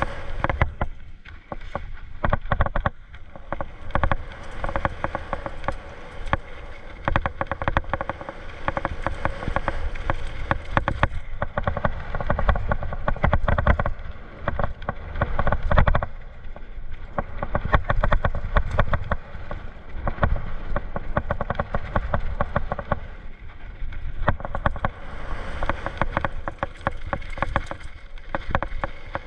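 Mountain bike rattling and clattering over a rough dirt trail on a fast descent, with a steady low rumble underneath.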